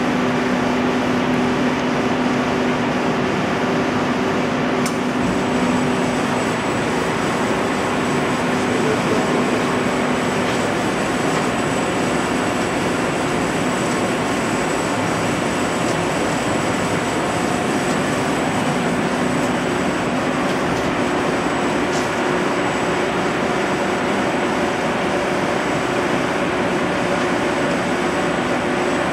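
A 2004 Hurco VM1 CNC vertical machining center running under power, with coolant pouring from the nozzles around the spindle, giving a loud, steady wash of machine and liquid noise. A low hum is strongest in the first few seconds, and a thin, high steady whine comes in about five seconds in.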